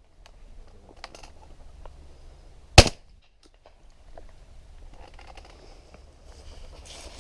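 A single loud 12-gauge shotgun shot a little under three seconds in, preceded about a second in by a much fainter sharp crack.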